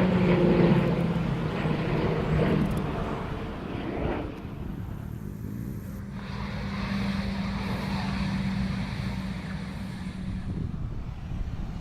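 An aircraft engine passing and moving away, its pitch falling and its level fading over the first few seconds, leaving a quieter steady drone.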